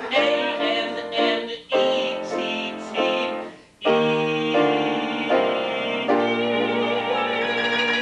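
Grand piano and a man's singing voice: several struck chords in quick succession, then a long held note with vibrato over a sustained piano chord near the end, the close of a comedy cabaret song.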